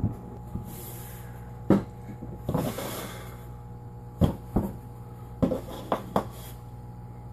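Dough being worked by gloved hands on a kitchen counter: a string of soft knocks and thumps as it is pressed and dropped onto the counter, with a brief rustle, over a steady low hum.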